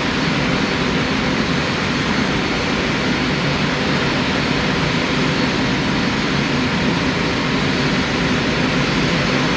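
Airbus A380's four jet engines running at taxi power as the airliner taxies past: a steady rumble with a hiss above it.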